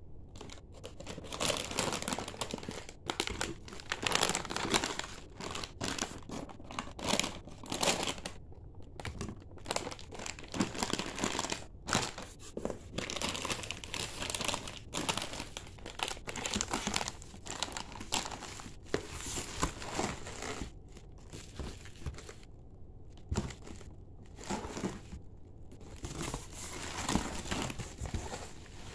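Plastic packaging crinkling and rustling in irregular bursts as milk powder pouches and their plastic wrapping are handled and lifted out of a cardboard box, with a short pause about three-quarters of the way through.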